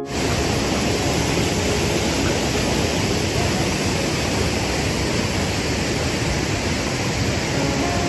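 Steady rushing of a river and waterfall, an even wash of water noise with no distinct splashes standing out.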